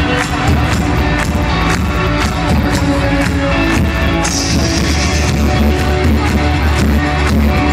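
Live rock band playing loudly, with electric guitar and bass over a steady drum beat.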